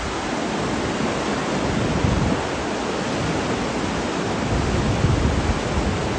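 Steady loud rushing of churning whitewater in a big river rapid, the Kern River running high and fast with snowmelt. Deep rumbling surges swell under the hiss of the water every couple of seconds.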